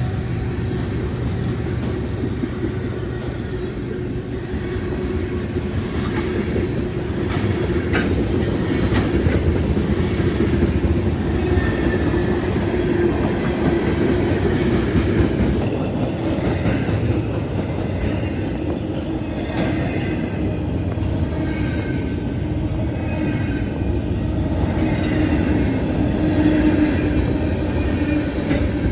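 CSX freight train cars rolling past over the rails, a steady, continuous rumble of wheels on track with clickety-clack.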